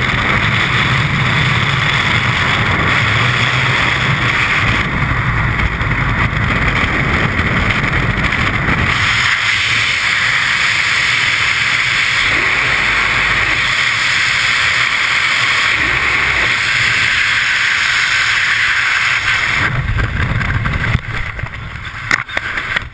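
Freefall wind blasting over a skydiver's helmet camera, a steady loud rush. Near the end the parachute deploys: the rush breaks up with a couple of sharp flaps and snaps, and the wind starts to die away as the canopy opens.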